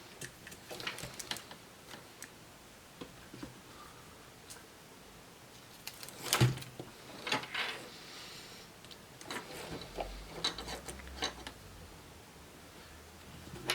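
Scattered light clicks and knocks of laptop parts being handled and set down on a workbench, with one louder knock about six seconds in.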